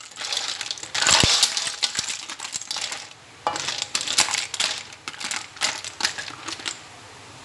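Cooked lala clams clattering against each other and the wok as they are stirred with a spatula: irregular clicking and rattling of shells in bursts, loudest about a second in.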